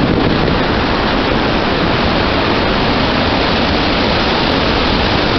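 Loud, steady rushing of storm wind, even and unbroken throughout.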